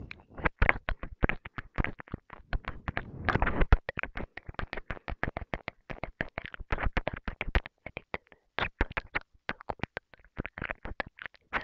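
Close-miked ASMR mouth sounds: wet saliva clicks and smacks, coming thick and fast, several a second, with a denser patch about three seconds in.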